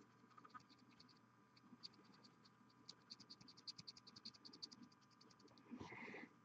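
Faint, quick scratchy ticks of a fine paint brush dabbing on a miniature, several a second, with a brief louder rustle near the end.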